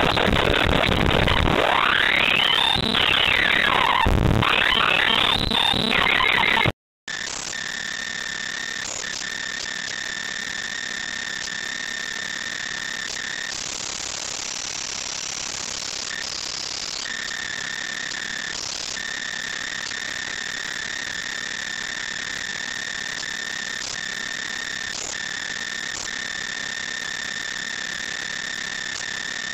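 Harsh synthesized electronic noise from the Monoxide.exe malware's bytebeat-style audio payload. It starts loud and dense with sweeping pitch glides, cuts out briefly about seven seconds in, then switches to a quieter, steady, hissy buzz with several high held tones that drop out now and then.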